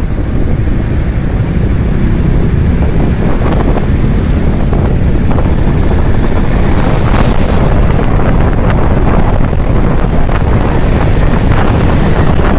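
Wind rushing over the microphone of a moving Kawasaki Ninja 650, mixed with the bike's parallel-twin engine running, heard from the rider's seat.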